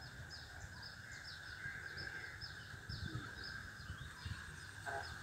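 Faint outdoor animal ambience: a steady high drone with short, high, falling chirps repeated about three times a second, typical of birds and insects calling.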